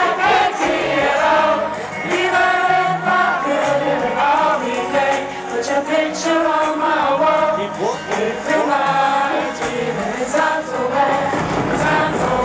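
Live concert music: a woman's voice sings a sustained, melodic hook over the backing track.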